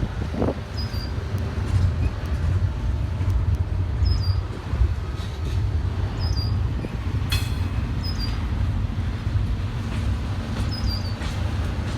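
Long CSX freight train rolling slowly past on the rails, a steady low rumble of the cars, with one brief sharp sound about seven seconds in.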